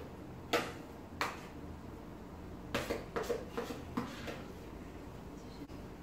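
A kitchen utensil knocking and scraping against a plastic mixing bowl as the mixture is scooped out: two taps early, then a run of quicker taps about three to four seconds in.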